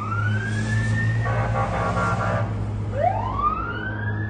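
Emergency vehicle siren wailing in slow sweeps: the pitch climbs, breaks off, then climbs again and starts to fall near the end. A steady low hum runs underneath.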